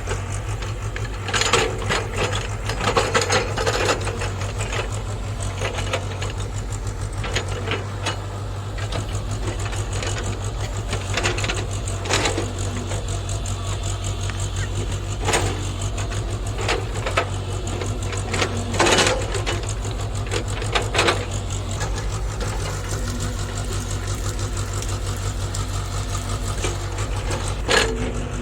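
JCB JS81 excavator's diesel engine running steadily under work, with short clanks and scrapes every few seconds as the machine handles rocks.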